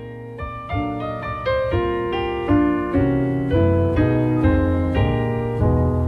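Background piano music: a gentle melody of evenly spaced notes over a low bass line, growing steadily louder.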